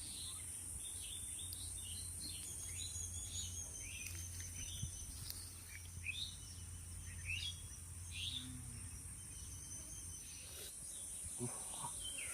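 Tropical forest ambience: birds chirping with many short, high calls scattered throughout, over a steady high-pitched insect drone.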